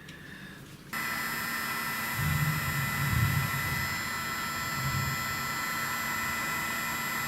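Hot-air gun switching on about a second in and blowing steadily with a high whine, shrinking heat-shrink tubing over soldered wire joints. Some low rumbling comes through a couple of seconds in.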